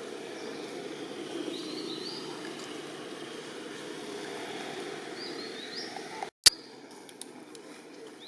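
Outdoor ambience with a steady low background rumble, and a bird calling in short rising chirps, twice. About six seconds in, the sound drops out briefly and ends in a single sharp click, like an edit in the recording.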